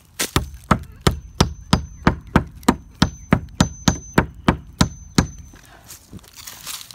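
Claw hammer striking nails into a wooden fence board: a fast, even run of blows, about three a second, that stops about five seconds in.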